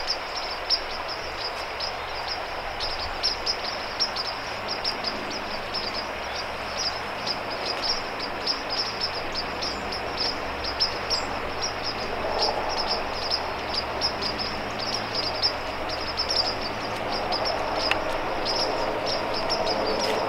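Outdoor ambience: a steady, rapid high-pitched chirping, many short chirps a second, over a constant hiss. A faint low hum comes in about twelve seconds in and grows near the end.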